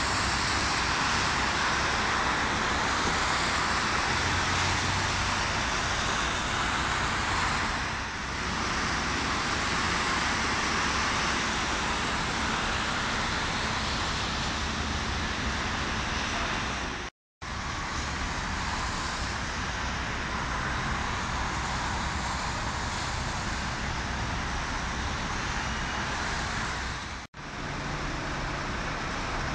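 Steady road traffic noise from a queue of slow-moving cars in a jam, with no single vehicle standing out. It cuts out briefly twice, about halfway through and near the end.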